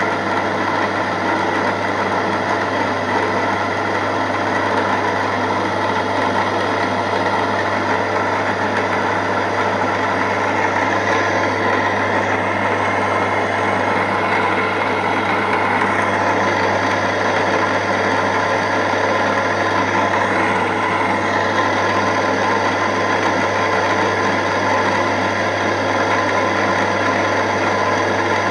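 Milling machine running with its end mill cutting into a small metal block: a steady machine hum under the continuous sound of the cut.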